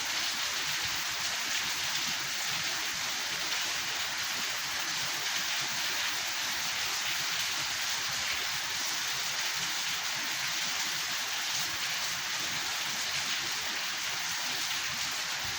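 Steady rain falling, an even hiss without thunder or breaks.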